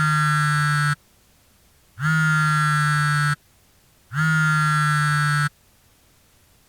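Three long held musical notes at the same low pitch, each about a second and a half long with a short silence between, each bending up slightly as it begins.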